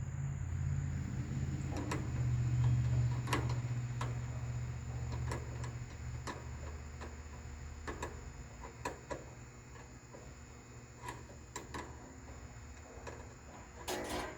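Scattered light metal clicks and taps from a screwdriver being held across a riding mower's starter solenoid posts, with nothing cranking. A low hum in the first half fades away, and a short rattle comes near the end.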